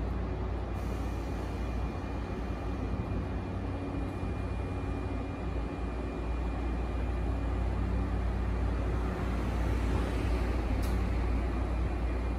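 Sotetsu 9000 series electric train standing still, its onboard equipment humming steadily over a low rumble, with a faint steady high whine. A single click about eleven seconds in.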